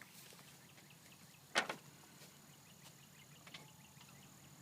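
A single sharp click about one and a half seconds in, over faint steady cricket chirring.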